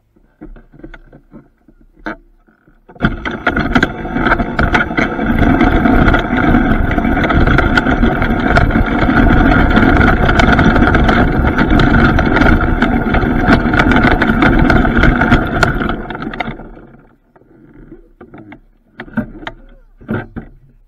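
Alternator-converted electric go-kart running across grass, its motor giving a steady whine over rattling knocks from the frame. It starts about three seconds in and stops about sixteen seconds in.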